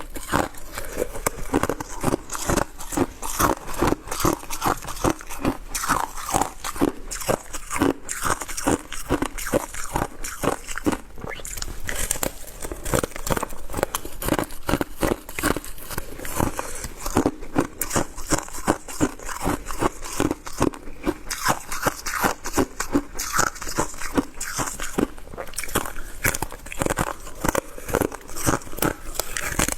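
A person chewing shaved ice close up, crunching it steadily at a few crunches a second.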